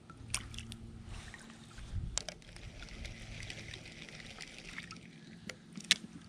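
Spinning reel being cranked to retrieve a lure, a soft steady whirr, with light water sounds against the kayak and a few small clicks and knocks of the gear. A sharp click comes near the end.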